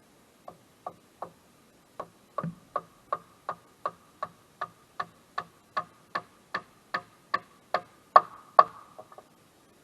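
A run of sharp, evenly spaced ticks, about three a second, that grow louder toward the end and stop about nine seconds in.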